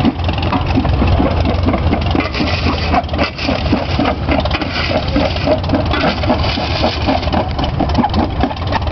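Farmall tractor engine running steadily at the belt, driving an old flywheel rock crusher through a long flat belt, with a rapid, regular clatter over the engine's low hum.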